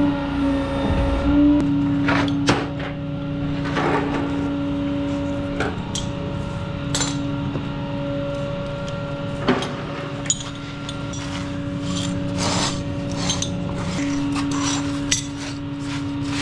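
Sharp metal clanks and rattles of tow-truck rigging being handled, repeated at uneven intervals over a steady hum that drops out now and then.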